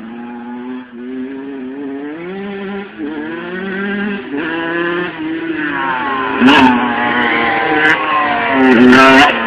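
Motocross bike engines revving up and dropping again and again as the riders accelerate and shift along the track, louder as a bike comes close. The loudest moments come about two-thirds in and just before the end.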